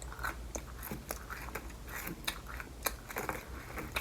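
Close-miked chewing of McDonald's food: a string of irregular wet mouth clicks and small crunches.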